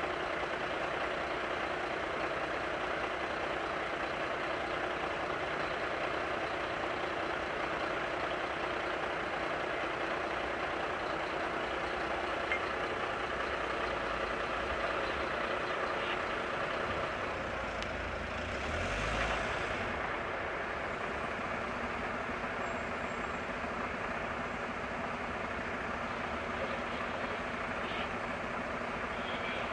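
Fire truck engine idling steadily, with a briefly louder low sound about two-thirds of the way through.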